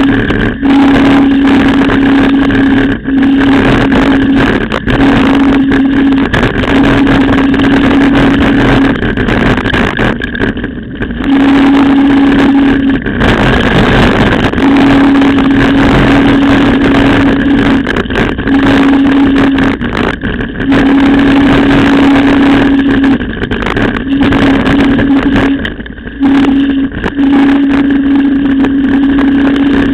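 Riding noise from a camera mounted on a mountain bike on a rough dirt road: steady wind and rattle on the microphone, with occasional knocks from bumps. Through it runs a steady hum that breaks off and comes back every few seconds.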